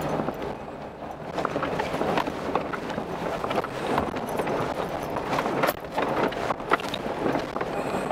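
A 4x4's tires rolling over a rocky dirt mountain road: a steady crunching rumble with many irregular knocks and clicks as stones strike and rattle under the vehicle.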